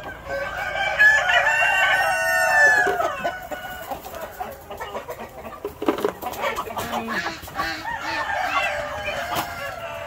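Chickens: a rooster crows loudly for about two seconds just after the start, then hens cluck and call in short, repeated notes.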